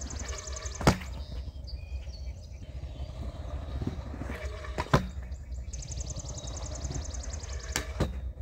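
Stunt scooter wheels rolling on concrete, with three sharp clacks of the scooter landing tricks, about one, five and eight seconds in.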